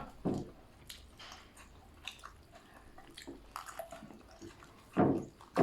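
People chewing and biting into grilled chicken, small wet clicks and crunches of eating, with a louder short noise just after the start and another about five seconds in.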